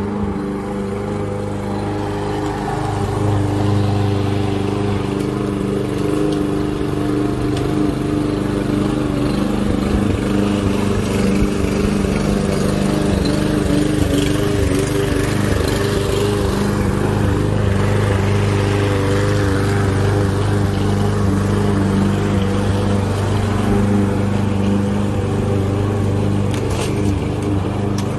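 Walk-behind gasoline lawn mower engine running steadily while the mower is pushed through grass, cutting it.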